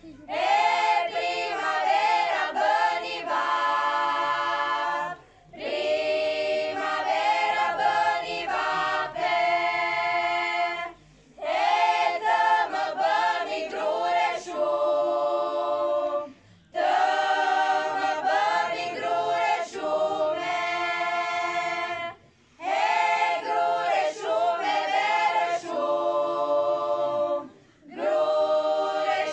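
Unaccompanied women's choir of about a dozen young voices singing together. The song comes in phrases of about five seconds, each followed by a brief pause for breath.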